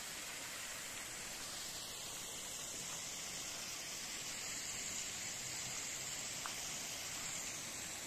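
Steady hiss of water from a small artificial waterfall splashing over rocks into shallow pools.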